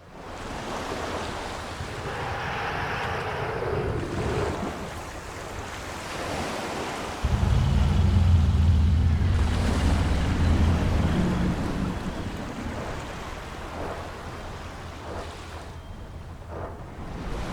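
A deep, low-pitched monster snore sound effect over steady rain. One long snore starts suddenly about seven seconds in and dies away over several seconds.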